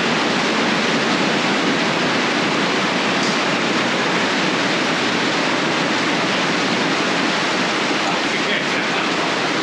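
Heavy rain pouring down in a downpour heavy enough to flood the ground, heard as a loud, steady, even hiss of water.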